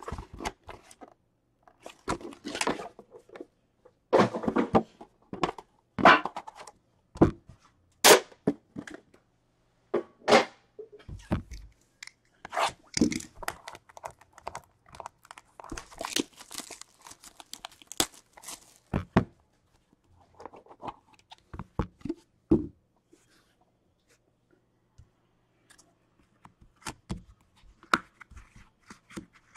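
A sealed hockey card tin and its wrapping being opened by hand: irregular tearing, crinkling and sharp clicks and knocks, falling quiet for a few seconds near the end.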